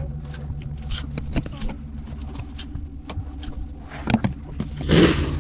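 Car engine idling steadily, with scattered light clicks and knocks and a scraping sweep near the end as a snow brush is pushed across the snow-covered car.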